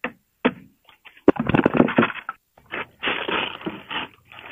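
Sharp whacks on a wooden cap rail piece, two about half a second apart, then a harder one about a second in. A long stretch of crackling and scraping follows as the piece breaks loose from its epoxy bedding.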